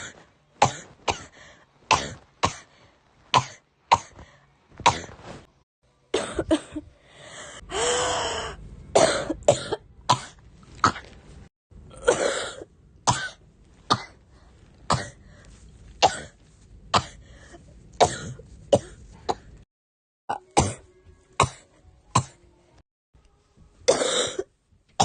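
A girl coughing over and over: many short, sharp coughs, about one or two a second, with a longer, drawn-out one about eight seconds in.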